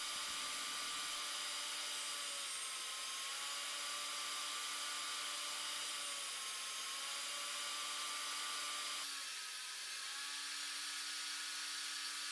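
DeWalt DWE7491RS 10-inch jobsite table saw running steadily with a Freud 8-inch dado stack, cutting dados and rabbets into a 4x4 on a second, full-depth pass. The sound drops slightly in level about nine seconds in.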